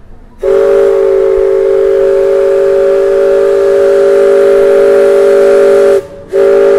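Riverboat steam whistle blowing a chord of several steady tones: one long, loud blast, a brief break near the end, then a second short blast.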